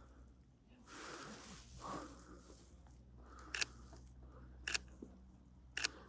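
Camera shutter clicking three times, about a second apart, in the second half, after a brief soft rustle about a second in.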